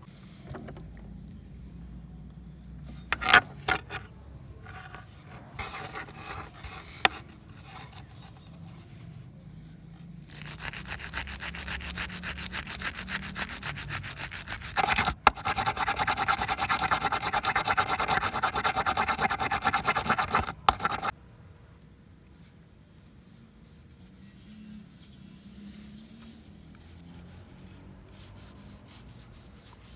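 Abrasive rubbing on a steel knife blade. A few sharp knocks come first, then about ten seconds of loud, fast, steady rubbing strokes that cut off suddenly, followed by fainter rubbing.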